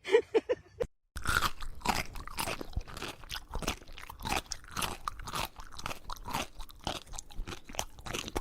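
Crunchy food being chewed: loud, irregular crunching, many crunches a second, starting after a brief break about a second in.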